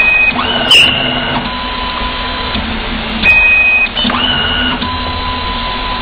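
Coaxial cable stripping machine running through its stripping cycle twice, about three seconds apart. Each cycle is a short steady high whine, then a motor whine that rises in pitch and holds for about a second. There is a sharp click about a second in.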